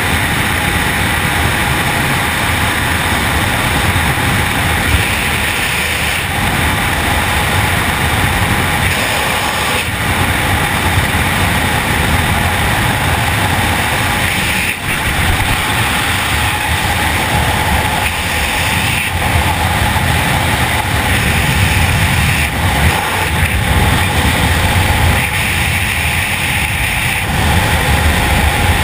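Steady, loud rush of freefall wind buffeting an action camera's microphone during a wingsuit flight.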